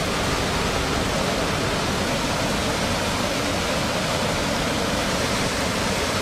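Floodwater pouring over a concrete barrage weir and churning in the turbulent water below: a loud, steady, even rush of water.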